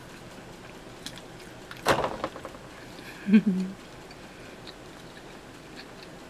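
A person chewing pizza with the mouth closed: a short burst of wet mouth noise about two seconds in, then a brief low hum from the throat about a second later.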